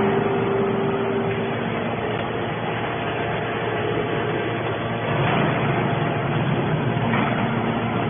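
Hydraulic scrap metal baler running: a steady mechanical drone from its hydraulic pump and motor, a little louder from about five seconds in.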